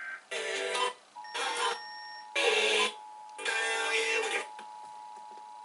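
Emergency Alert System two-tone attention signal (853 and 960 Hz sounded together), a steady dual tone starting about a second in. Short bursts of a voice run over it until about four and a half seconds in.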